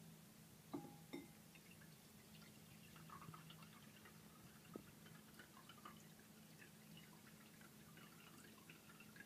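Faint trickling and dripping of brewed coffee poured slowly from a cup into a ceramic bowl, with two light clinks about a second in. A low steady hum runs underneath.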